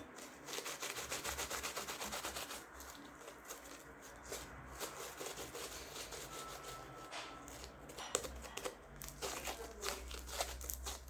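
Sticky glue-and-borax slime being kneaded and pulled by hand: a continuous run of small crackling clicks and rubbing. The slime is still tacky, not yet at its final consistency.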